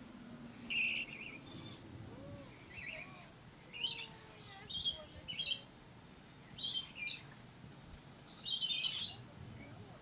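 Red-collared lorikeets calling: a series of short, high-pitched chirping calls, roughly one a second, with a longer burst of chatter near the end.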